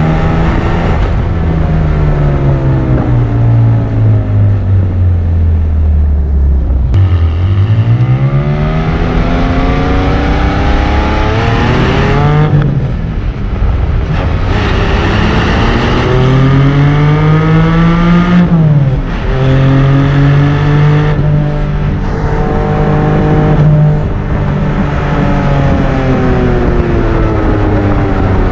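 Porsche 718 Cayman GT4's 4.0-litre naturally aspirated flat-six and exhaust under way. The engine note falls as the car slows, then rises through two pulls with a quick drop in pitch at each gearchange. It holds steady for a few seconds and falls away again near the end.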